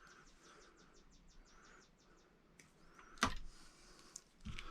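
Wire strippers cutting the insulation on a wire end, giving one sharp click about three seconds in and another near the end. A bird chirps rapidly and faintly in the background.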